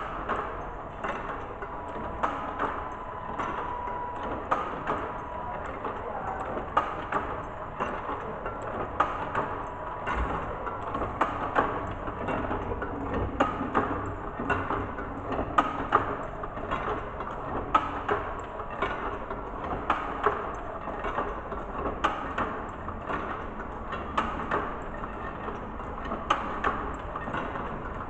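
A curtain-making machine for butterfly pleat curtains running, with a steady clatter of repeated clicks and knocks, and a faint steady tone during the first few seconds.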